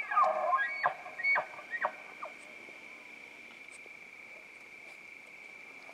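Bull elk bugle ending: a high call falling away, then four or five short chuckles in the first two seconds.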